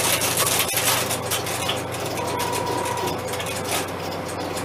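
Relays and crossbar switches of a 1971 Fujitsu crossbar PBX clattering in a dense, irregular run of clicks as the exchange sets up a call that has just been dialed, over a steady electrical hum. A brief steady tone sounds a little after two seconds in.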